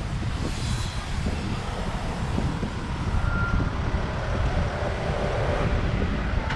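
Wind buffeting the microphone over outdoor traffic and surf noise, with one short high beep about three seconds in.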